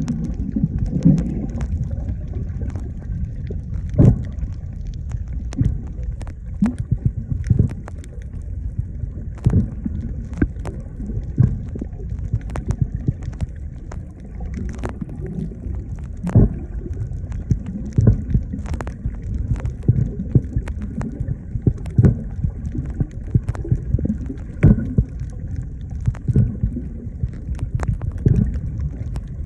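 Water noise: a steady low rumble with irregular clicks and pops scattered throughout.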